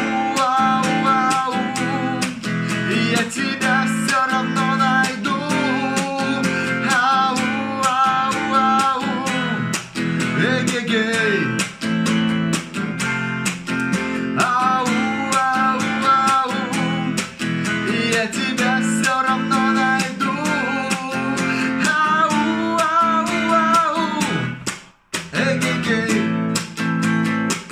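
A man singing while strumming an electric guitar in a steady rhythm. The playing and singing stop briefly near the end, then start again.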